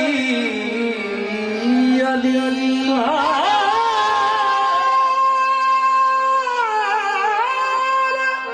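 Male voice singing a devotional qawwali in long held notes with ornamented turns, over steady instrumental accompaniment.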